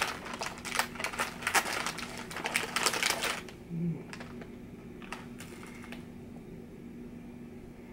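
Crinkling plastic packaging of s'mores Oreo cookies being opened and handled: a dense run of crackles that stops about three and a half seconds in. A few separate crisp clicks follow as a cookie is bitten into.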